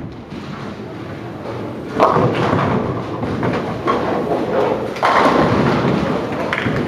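Ten-pin bowling ball rolling down the lane, then crashing into the pins for a strike about two seconds in, the pins clattering. A second loud clatter follows about three seconds later.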